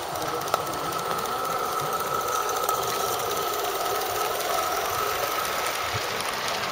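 16mm-scale live-steam model locomotive running with its train, a rapid mechanical beat over a steady high-pitched tone, with a sharp click about half a second in.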